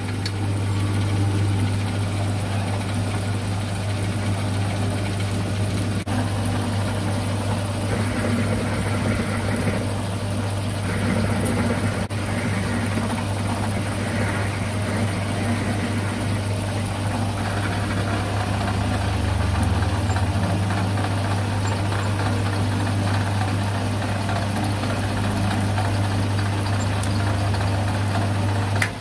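A milling machine runs steadily with a constant motor hum as it drills and cuts an aluminium block. Several short stretches of louder cutting noise come in the middle of the clip.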